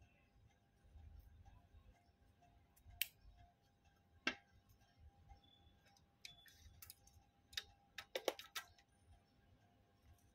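Near silence broken by a few faint, sharp clicks: small embroidery scissors snipping thread and being set down, then a quick run of small clicks about eight seconds in as small fabric pieces are handled.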